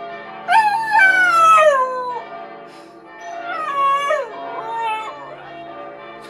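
Siberian husky howling twice, each howl a long call that rises briefly and then falls in pitch, over church bells ringing.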